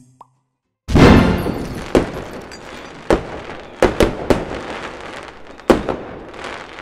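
Fireworks sound effect: a loud burst about a second in, then a fading rumble with several more sharp bangs and crackles spread through the rest.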